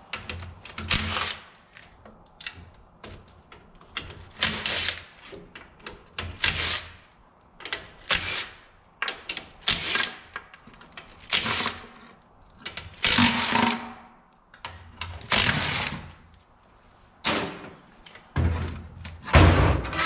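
A cordless driver spinning the oil pan bolts out of a 48RE automatic transmission in a string of short runs, about one every second or so. A louder thump near the end as the pan comes away.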